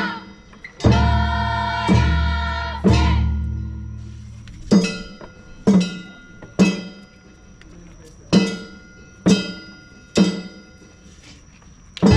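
Kunchi festival hayashi percussion: a drum and a ringing metal gong struck in sets of three, about a second apart, each stroke ringing on and dying away. The first three strokes carry a deep drum boom; the later ones are mostly the gong's ring.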